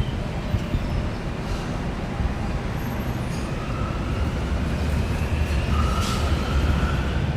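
Steady street traffic noise with a low rumble of passing vehicles, and a faint rising whine in the second half.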